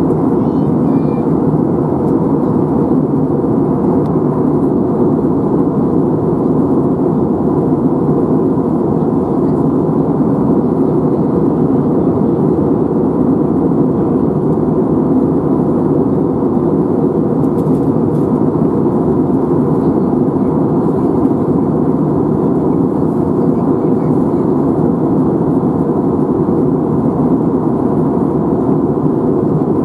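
Airliner cabin noise: the steady, even rush of the engines and the airflow heard from inside the passenger cabin, with a faint steady tone above it.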